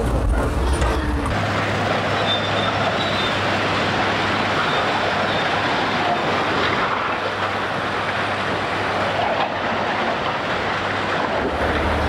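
Loud, steady mechanical din of heavy construction machinery, set going by a control that was not supposed to be touched.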